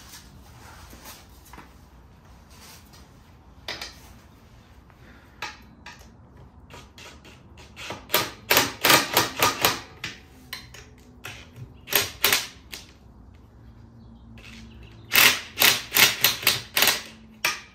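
Cordless impact driver hammering with a 12 mm socket as it tightens exhaust flange nuts. Two spells of short rattling bursts come about eight seconds in and again about fifteen seconds in, with a few single knocks between them.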